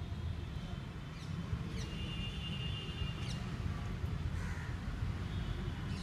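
Birds calling outdoors: a few sharp, high, quick chirps and some thin whistled notes over a steady low rumble.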